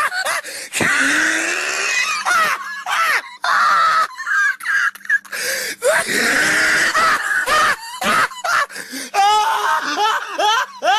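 A person laughing hard in wheezing, breathy fits, broken by short gasps.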